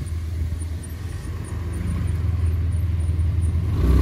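Motor vehicle engine running with a steady low rumble that slowly grows louder.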